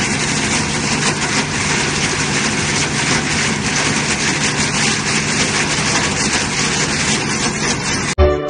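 Small electric corn husking machine running steadily while ears of corn are fed through, a constant low hum under a dense, even clatter. It cuts off abruptly near the end and music takes over.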